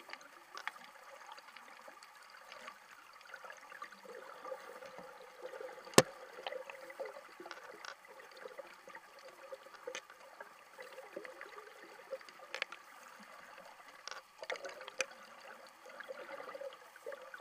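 Stream water heard from an underwater camera: a steady rush of flowing water with scattered small clicks and ticks, and one sharp click about six seconds in.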